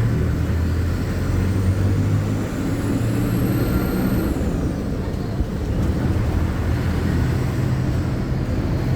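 City bus interior while driving: the engine and running gear make a steady low drone. A thin high-pitched whine rises over the first four seconds and fades out about halfway through.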